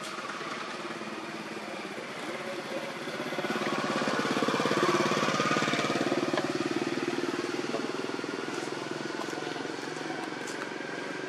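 A motor vehicle's engine running as it passes on the road, swelling to its loudest about halfway through and then easing off to a steady lower hum.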